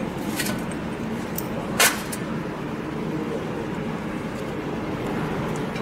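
Light metal clicks and one sharp clink a little under two seconds in, as steel unit-injector parts are handled over a stainless steel tray, over a steady low background hum.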